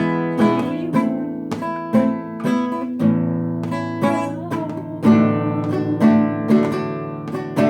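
Acoustic guitar playing a slow instrumental accompaniment: chords plucked or strummed about twice a second, each one ringing out before the next.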